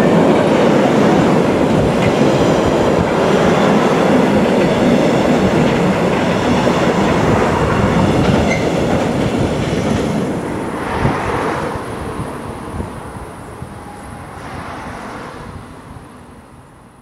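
Freight wagons of an intermodal train rolling past at speed, their wheels rumbling on the rails with a rapid run of clicks. The noise is loud and steady until the last wagons pass about ten seconds in, then fades away.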